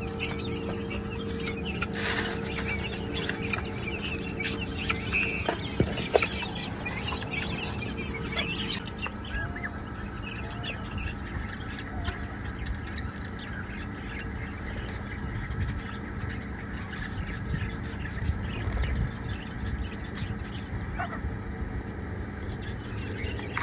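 Young guinea fowl chirping and squawking around a freshly filled feed dish, many short calls close together. After about nine seconds the calls thin out and grow fainter.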